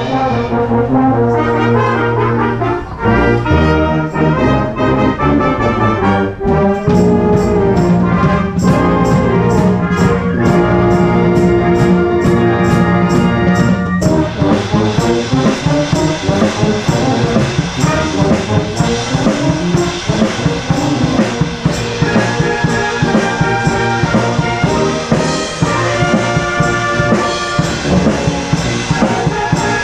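Wind band playing, with tuba, trombones and trumpets to the fore and a drum kit keeping time. Held brass chords with steady cymbal strokes give way about halfway through to a busier, more rhythmic passage.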